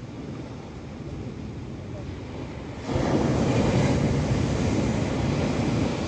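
Ocean surf breaking and washing up a sandy beach, a steady rushing that turns suddenly louder about halfway through as a wave crashes.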